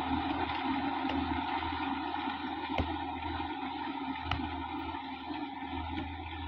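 Sonalika DI-50 RX tractor's diesel engine running steadily under load while it drives a rotary tiller through the soil, growing slightly fainter as it moves off. A few sharp clicks stand out over the drone.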